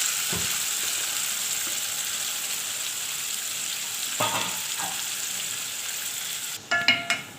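Pieces of liver sizzling in hot ghee and oil as they sear in a pan, a steady hiss that slowly dies down. Near the end a few sharp metallic clinks of a utensil against the pan.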